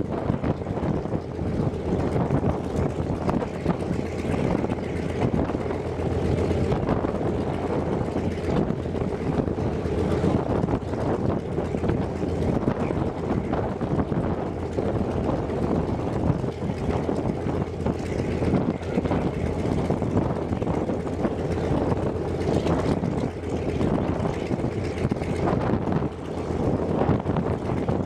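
Antonov An-2's nine-cylinder Shvetsov ASh-62IR radial engine running steadily on the ground, propeller turning.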